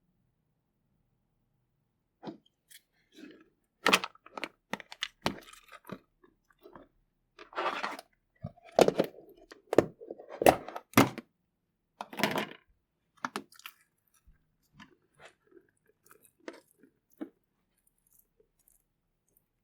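Slime being squished and pressed by hand, making an irregular run of clicks, pops and short crunchy bursts. It starts about two seconds in, is densest and loudest through the middle, and thins to scattered clicks near the end.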